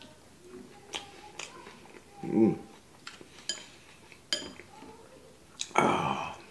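Chopsticks clinking against ceramic bowls, with short ringing clinks about three and a half and four seconds in, over mouth noises of chewing. A short low hummed "mm" comes about two seconds in, and another short voiced sound near the end.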